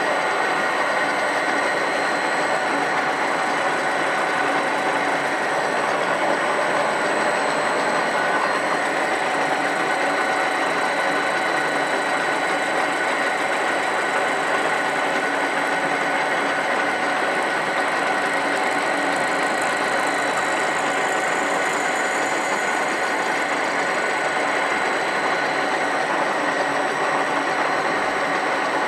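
A machine running steadily: an unbroken mechanical whirr with a faint, steady high whine over it.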